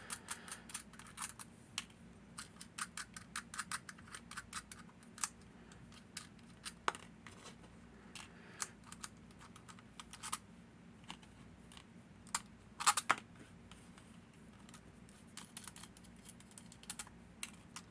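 Irregular small metallic clicks and taps from tools and parts handled while a lever padlock is being taken apart, a few of them sharper, with a faint steady hum underneath.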